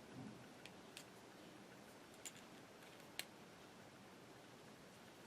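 Near silence broken by a handful of faint, short clicks of pliers handling a small piece of steel wire as it is bent into a staple.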